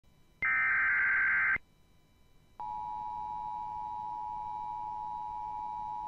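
Emergency Alert System broadcast: a harsh burst of SAME header data lasting about a second, then after a one-second pause the steady two-tone EAS attention signal begins and holds.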